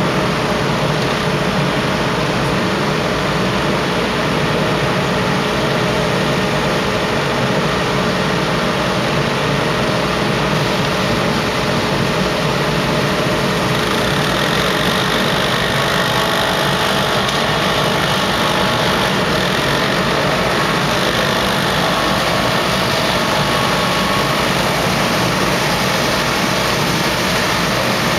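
Street-cleaning machinery clearing fallen leaves, led by a truck-mounted street sweeper running steadily: a loud, even mechanical drone, with a higher hiss growing a little stronger about halfway through.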